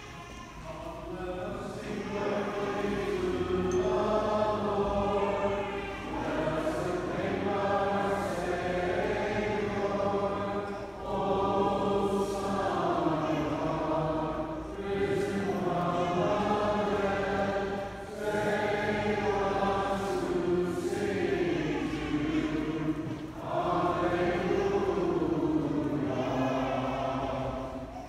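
Byzantine liturgical chant sung by many voices together, in sustained phrases of a few seconds, each followed by a short breath pause.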